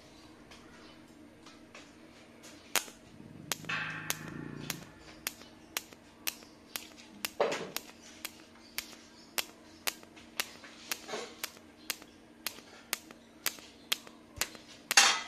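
TIG welding arc on thin 304 stainless steel pipe, giving sharp regular clicks of about two a second over a faint steady hum.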